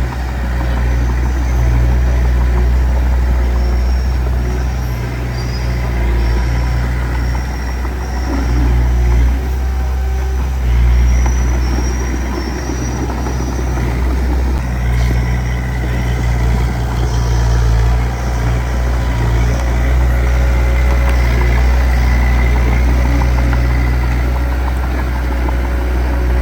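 Heavy diesel engine of earthmoving machinery running steadily, a loud low drone that swells and eases slightly.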